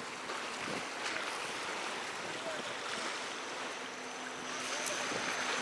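Sea water washing against the breakwater rocks, with wind on the microphone: a steady wash of noise.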